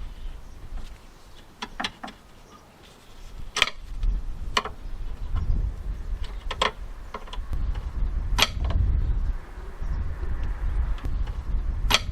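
Sharp clicks and knocks, about six of them spaced a second or more apart, from working on a Land Rover Discovery 2's rear door lock and handle mechanism, over a low rumble.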